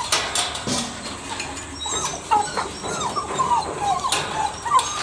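Beagle puppies whining and yipping excitedly in a run of short, high calls that come thicker from about two seconds in, with rustling near the start.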